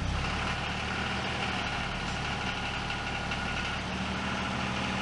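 Garden tractor engine idling steadily, just after being started.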